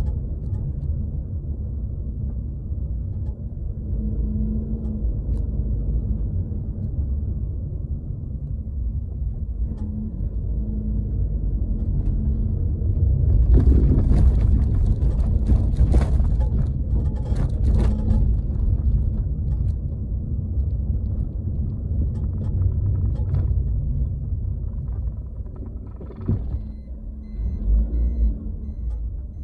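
Suzuki Swift (ZC72S) on the move, heard from inside its boot: steady low road and tyre rumble, with a cluster of sharp clicks and knocks about halfway through and another sharp knock near the end. The noise being chased is neither a rattle nor a clunk, and the owner thinks it comes as the rear suspension moves.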